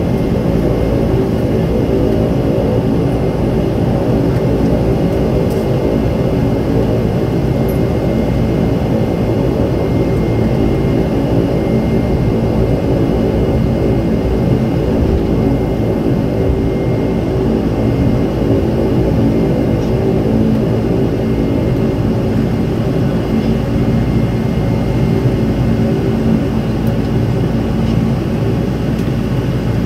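Cabin noise of an ATR 72-200 turboprop taxiing, heard from inside: the engines and propellers run steadily as a dense drone of several fixed pitches, with a thin steady whine above it.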